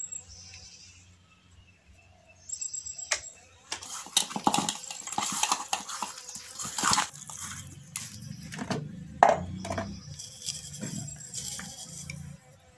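Hands mixing spice-coated raw snakehead fish pieces in a metal bowl: irregular wet squishing and rubbing with small knocks against the bowl, starting about four seconds in.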